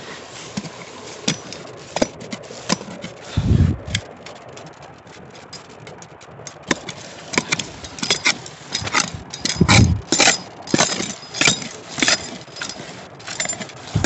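Hand digging tool scraping and striking soil and stones, a run of sharp scrapes and clinks, sparse at first and much busier from halfway on, with a couple of dull thumps. The tool is working around a large stone in the hole.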